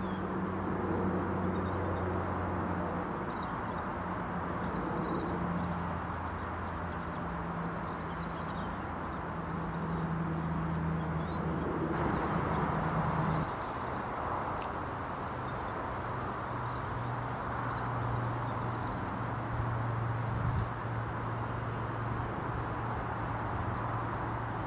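Outdoor background of a steady low engine drone whose pitch drops about halfway through, with small birds chirping now and then.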